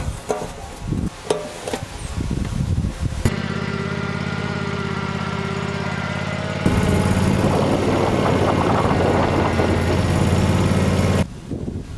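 Ferris riding mower's engine running steadily, getting louder about seven seconds in and cutting off suddenly near the end; it is preceded by a few clicks and knocks.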